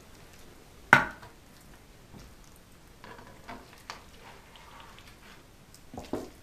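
Kitchen handling sounds while stuffing a pike skin with fish mince: a sharp knock about a second in, a few light clicks and taps, then a spoon knocking against a plastic bowl near the end.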